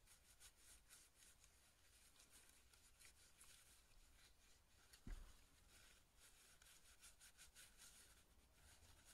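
Faint rustling of tissue paper rubbed along a white plastic part from a VSR-10 airsoft rifle as it is wiped clean, in many quick strokes. A single low bump about five seconds in.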